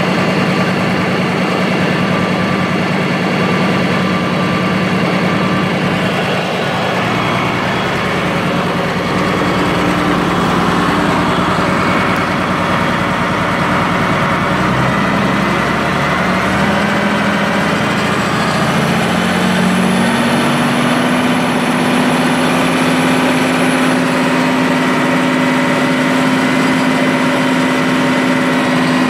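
1970 International Harvester 1456 tractor's turbocharged six-cylinder diesel running at a steady low speed, then brought up in steps to a higher, steady engine speed about halfway through.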